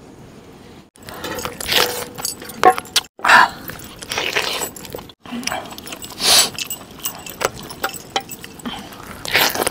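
Eating sounds of curried mutton, slurping and chewing, mixed with metal jangling and clinking from jewellery and steel bowls. They come in short loud bursts starting about a second in, broken by a few abrupt cuts.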